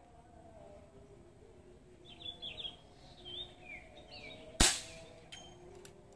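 A single sharp shot from a PCP air rifle firing a 17-grain slug, about four and a half seconds in, preceded by birds chirping.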